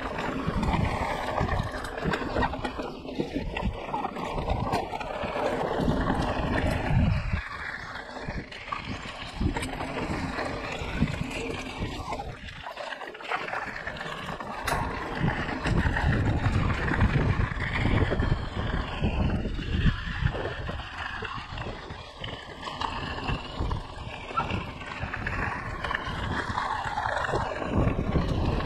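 Mountain bike riding on a dirt trail: wind buffeting the microphone and tyres rolling over the ground, rising and falling, with a brief lull about 13 seconds in.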